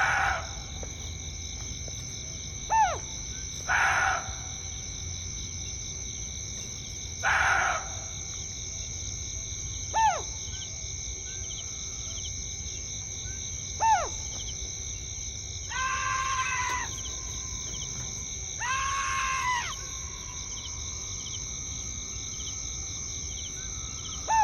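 Steady chorus of crickets trilling at night. Over it come several short calls that drop sharply in pitch, a few seconds apart, two longer wavering cries past the middle, and a few brief hissing bursts in the first eight seconds.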